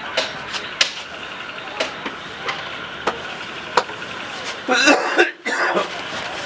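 A person coughs about five seconds in, the loudest sound here. Before it come a few sharp, light clicks spaced roughly half a second to a second apart, over a steady high hiss.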